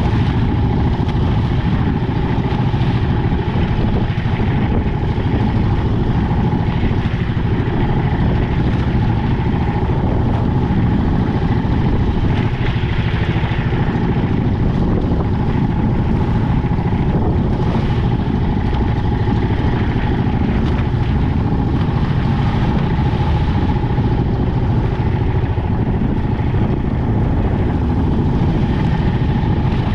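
Small outrigger fishing boat's engine running steadily under way, with spray splashing and the hull slapping through choppy waves.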